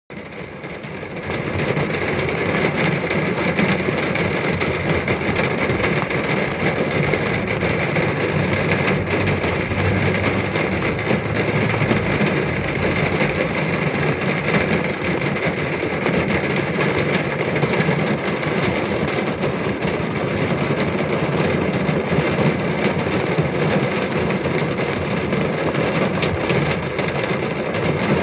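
Heavy rain drumming on a car's roof and windscreen, heard from inside the cabin: a dense, steady patter of drops that crackles like fireworks, building up over the first second or two.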